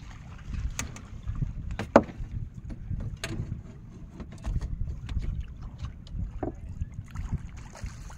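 Wind rumbling on the microphone and water lapping at a small wooden boat, with scattered sharp knocks and clicks as a fishing rod and landing net are handled on board. The loudest knock comes about two seconds in.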